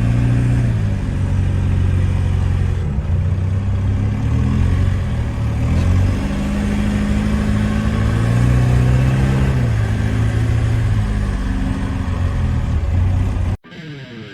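Off-road 4x4 engine running and revving, its pitch rising and falling repeatedly, then cutting off abruptly near the end.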